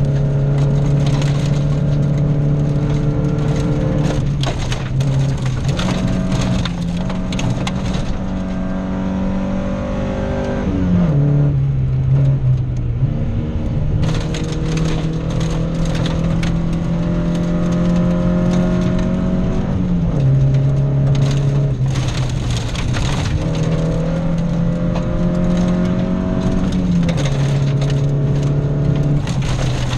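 Cabin sound of a Volvo rally car at speed on gravel: the engine runs hard at a held pitch that steps down and back up several times with gear changes. Loose stones crackle and rattle against the underbody throughout.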